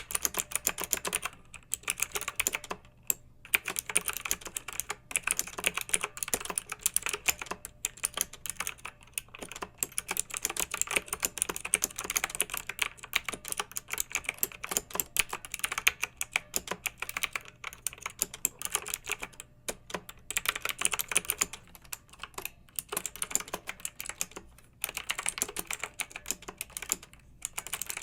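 Fast typing on a clicky mechanical keyboard: dense runs of sharp keystroke clicks with brief pauses every few seconds.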